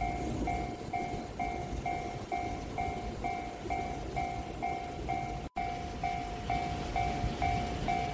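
Japanese level-crossing warning bell ringing a steady two-tone ding a little over twice a second, over the low rumble of a train. The sound drops out briefly about five and a half seconds in.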